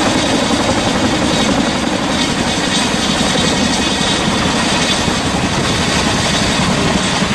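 Boeing CH-47 Chinook helicopter's tandem rotors and turbine engines running loud and steady while it lifts a heavy sling load.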